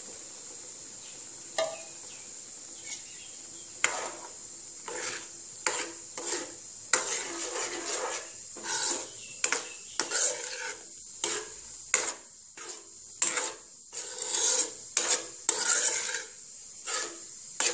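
Steel ladle stirring boiled lentil dal in a non-stick pan on the stove, with repeated scrapes and knocks against the pan from about four seconds in, over a faint steady hiss.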